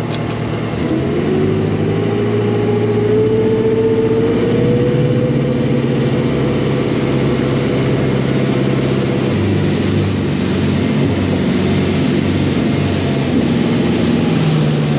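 A motor boat's engine running under way. Its pitch rises over the first few seconds as the throttle opens, then holds steady.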